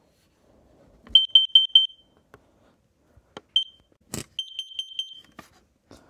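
Kidde carbon monoxide alarm sounding its alert: a quick run of about five short, high, piercing beeps about a second in, a single beep, then another run of beeps in the second half. A sharp click falls just before the second run.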